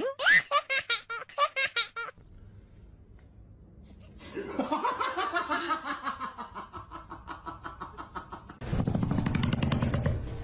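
Human laughter in rhythmic bursts, a few a second. Near the end a louder, fast, low pulsing sound takes over.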